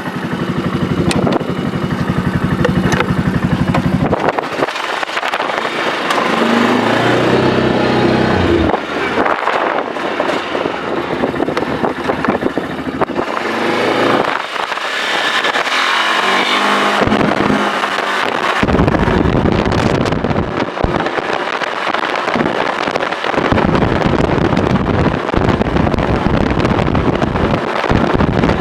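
An engine running steadily, its pitch rising twice, with a dense rushing noise through the later part.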